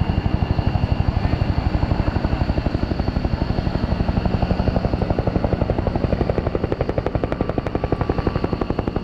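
Helicopter rotor beating steadily at about nine to ten thuds a second.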